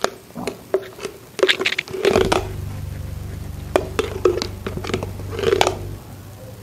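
Eating sounds from a nearly finished jar of mayonnaise: a string of short clicks and scrapes of a spoon against the jar, mixed with mouth noises. A steady low hum runs through the middle few seconds.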